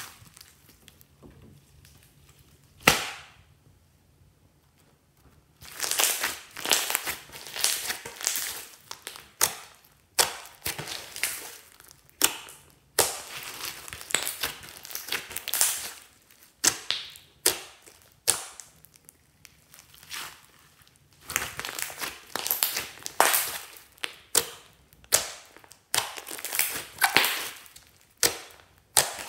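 Glossy slime being squeezed, pressed and stretched by hand: wet squishing with sharp pops and crackles, in repeated bursts of about a second each. One loud pop comes about three seconds in, and near-continuous squishing runs from about six seconds on.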